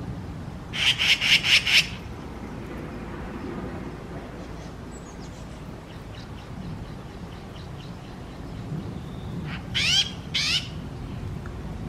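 Magpies giving mobbing calls at a cat: a loud run of five quick notes about a second in, faint short notes in the middle, and two rising calls near the end.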